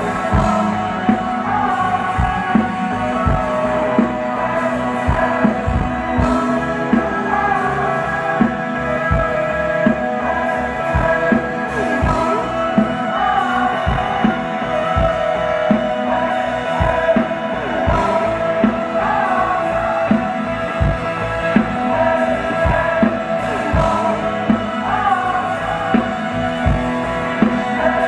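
Live rock band performing: a drum kit keeps a steady beat under guitar and bass, with sung vocals over the top.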